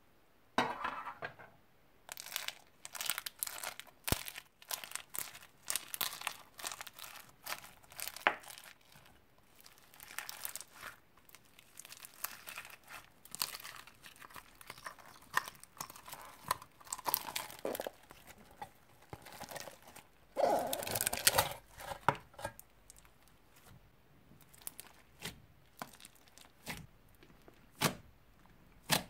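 Dried slime packed with foam beads and straw pieces squeezed and pressed by hand: dense crinkling and crackling in bunches, loudest about twenty seconds in. It thins to scattered single clicks near the end.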